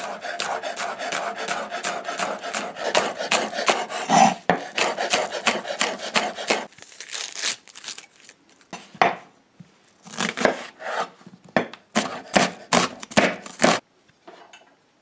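Chef's knife chopping scallion on a wooden cutting board in a quick, continuous run of knocks for the first several seconds. About seven seconds in comes a short papery rustle of onion skin being peeled. Then come several shorter runs of knife strokes on the board as the onion is cut.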